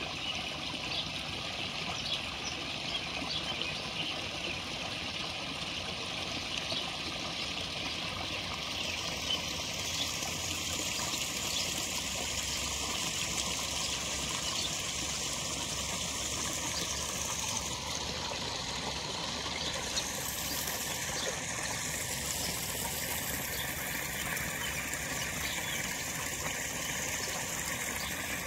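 Steady trickling, splashing pond water, with small scattered ticks and pops in the first part, from koi feeding on floating pellets at the surface.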